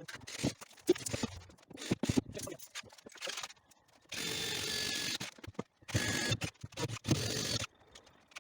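Construction work: scattered knocks and clatter, then a power tool running in short bursts of about a second, the longest starting about four seconds in.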